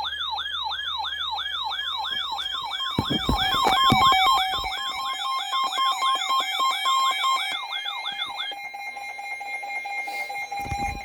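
Electronic siren-style emergency alert tone, rising and falling rapidly about three times a second. A few seconds in, a second, steadier alert tone joins. It carries on after the warbling siren stops near the end.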